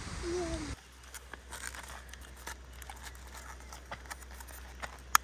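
Light crinkling and rustling with scattered small clicks, as of something being handled, and one sharp click near the end. For the first moment there is wind noise, cut off abruptly.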